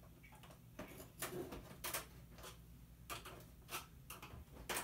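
Screwdriver prying at the hooks on a flat-screen TV panel's frame: a string of about ten short, sharp clicks at irregular intervals.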